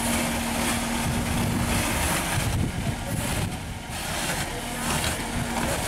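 JCB 3DX backhoe loader's diesel engine running under load while the backhoe digs, with a steady hum that drops out about two seconds in and comes back near the end.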